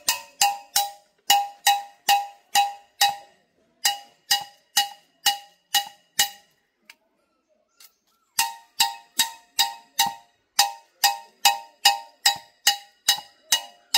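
Metal hand tools striking metal repeatedly while digging a soil-sample pit, each blow giving a clear ringing clang. The blows come about two to three a second in three runs, with a short pause after about three seconds and a longer one about two seconds later.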